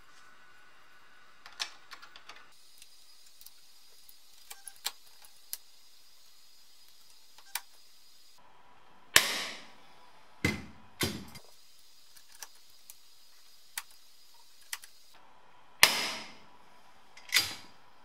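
Handheld pop rivet gun fastening a small metal bracket to a plastic dashboard. Light clicks of handling come first, then two groups of sharp snaps about seven seconds apart as rivets are set, the first snap of each group the loudest.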